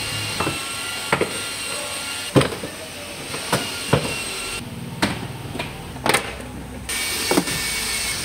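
Plastic interior trim panels of a Toyota Avanza being pulled off by hand: about ten sharp snaps and knocks at irregular intervals, as the retaining clips let go and the panels knock against the body, over a steady background hiss.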